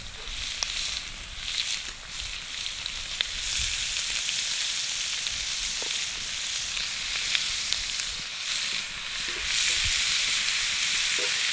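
Chunks of raw venison searing in hot oil in a black steel wok: a steady sizzle with scattered small crackles and pops. The sizzle grows louder about three and a half seconds in and again near the end, as the meat is left to brown.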